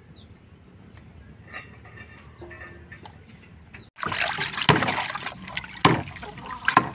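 A hand swishing and splashing leafy greens in a pot of water to wash them. The splashing starts about four seconds in, with three sharper splashes. Before that it is fairly quiet, with faint repeated chirps.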